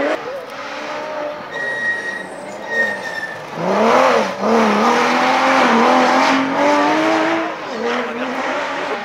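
Porsche Cayman rally car coming into a hairpin with a brief high tyre squeal. Its engine dips and flares as it turns in about four seconds in, then rises steadily in pitch under full throttle out of the bend, with a gear change near the end.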